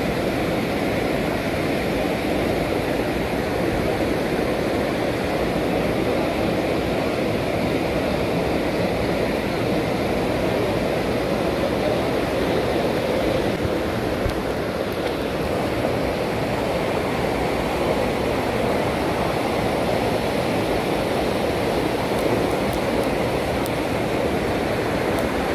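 Waterfall and river cascades rushing steadily: an unbroken, even wash of water noise.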